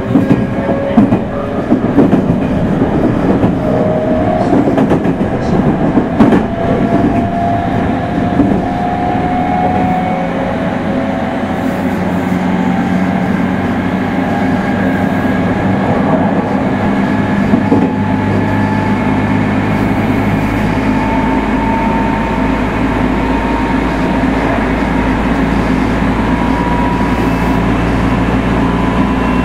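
Running sound of a Meitetsu 3100 series electric train accelerating: the traction motor whine rises slowly and steadily in pitch over rumbling rail noise. Wheels clatter over rail joints in the first several seconds, and a deeper hum builds in the second half.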